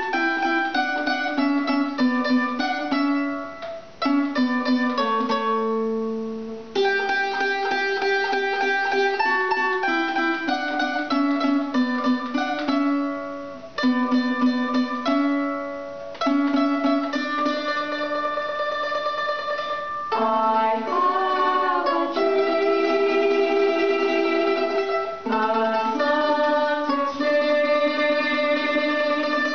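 A small plucked string instrument and a guitar playing a slow tune together, with singing at times; a few plucked notes are left to ring and die away.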